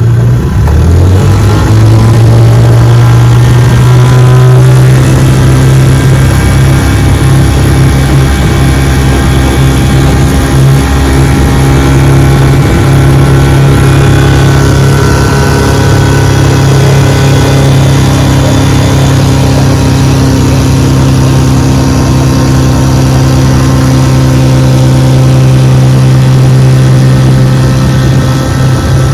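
1968 Johnson 6 hp two-cylinder two-stroke outboard motor throttling up in the first second, then running steadily at cruising speed, pushing a small john boat.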